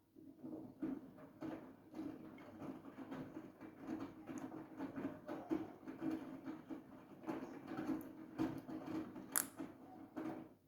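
Siemens iQ700 front-loading washing machine's drum turning during a wash, with a steady motor hum and irregular clattering and swishing from the tumbling load. It starts abruptly and cuts off near the end, as the drum stops for a rest in the wash rhythm.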